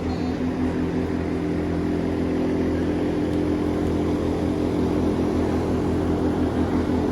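An engine running steadily, a low even drone that holds the same pitch throughout.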